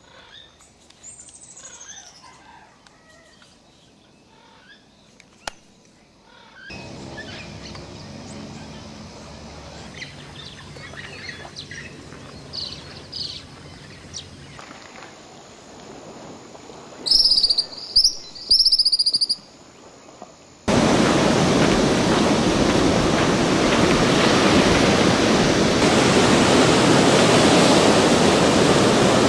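Forest sound stitched from several clips: scattered bird chirps, then a few loud, high, repeated bird calls. About two-thirds of the way through it cuts abruptly to a steady, loud rushing noise.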